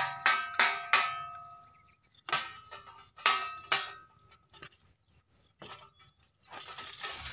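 Homemade bird and animal scarer: wire hooks on a turning fan's shaft strike a steel thali plate, giving a series of metallic clangs that ring on after each hit. The clangs come in bursts with pauses between: about four in the first second, more a couple of seconds in, and one more near the end.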